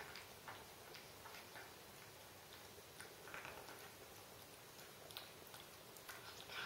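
18-year-old cat eating wet food from a bowl: faint, irregular clicks and smacks of chewing.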